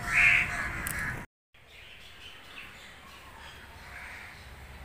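A crow caws once near the start. After a brief dropout the sound falls to a quiet outdoor background with faint bird calls.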